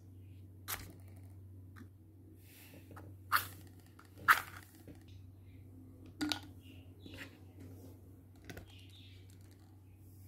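A wooden matchstick is struck against a matchbox's striking strip in a few short, sharp scrapes; the loudest comes about four seconds in, as the match catches. Later come a few lighter clicks and knocks as the plastic cap goes onto the bottle.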